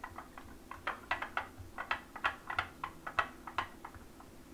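Spatula stirring food coloring into melted candy bark in a bowl: quick repeated scrapes against the bowl, about four a second.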